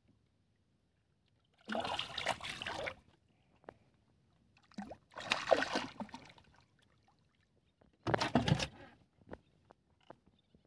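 Water splashing and sloshing beside a small wooden boat in three loud bursts, a few seconds apart, with light knocks in between.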